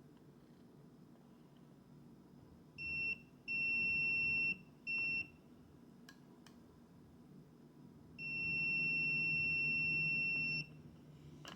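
Tesmen 522S digital multimeter's beeper sounding: a steady high-pitched tone in four beeps, a short one, one of about a second, another short one, then a long one of about two and a half seconds near the end. A couple of faint clicks fall between the beeps.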